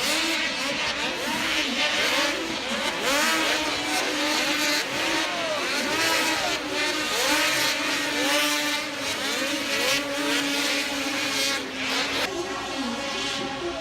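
Several snowmobile engines revving up and dropping back over and over, their rising and falling pitches overlapping, over a steady engine drone.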